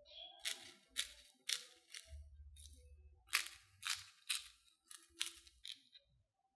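Crisp crunching of fried potato sticks: about ten sharp crunches roughly half a second apart.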